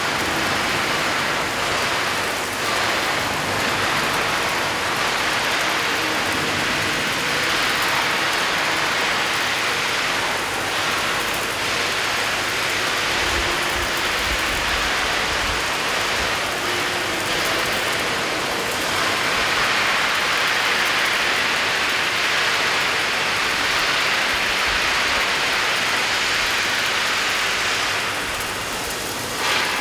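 Steady crackling, sizzling hiss of an electric welding arc as a wall-climbing robot's torch runs a weld along a steel plate seam. The level dips briefly near the end.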